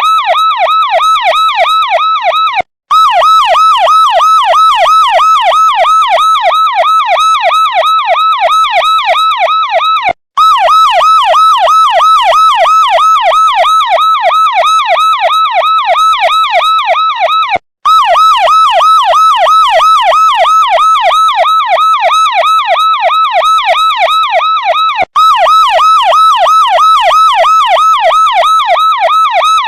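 Electronic police siren wailing in a fast warble, its pitch sweeping about five times a second. It cuts out for an instant four times, at even intervals of about seven and a half seconds.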